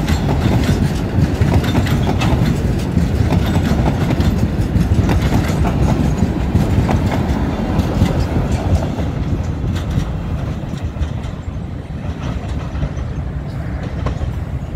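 Freight train of boxcars rolling past close by, its wheels clicking and clattering over the rail joints. The last wagon passes about halfway through, and then the sound grows fainter as the train moves away.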